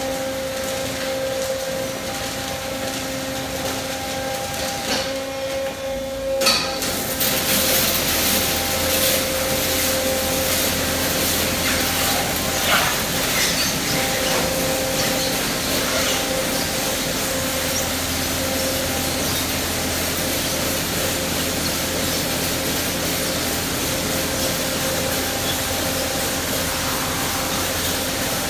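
Autec Evolution soft-cloth car wash machine running, with a steady hum from its motors and pumps. About six seconds in, its high-pressure water jets start with a sudden loud hiss and keep spraying over the car.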